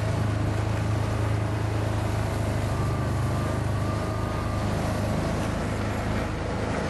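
Steady low hum of a running engine.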